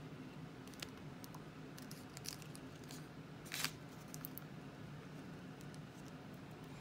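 Faint crinkling and rustling of a 2019 Elements football card pack's wrapper as the cards are slid out of it, with one louder rustle about three and a half seconds in, over a faint steady low hum.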